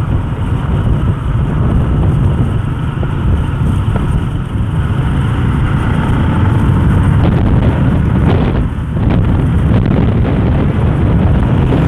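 Motorcycle riding at speed: wind rushing over the microphone with engine and road noise beneath it, steady apart from a brief dip about eight seconds in.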